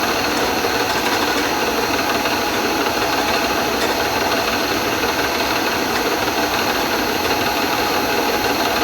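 Bridgeport milling machine running steadily, its spindle motor and drive giving an even mechanical hum with several steady tones.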